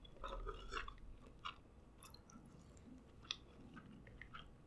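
Quiet mouth sounds of chewing king crab meat and rice, with a few short sharp clicks of a fork against the serving tray.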